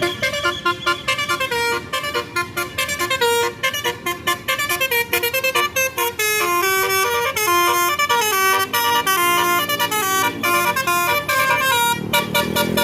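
A tour bus's telolet basuri musical horn playing a fast melody of short, stepping notes. In the last few seconds a low engine note rises underneath it.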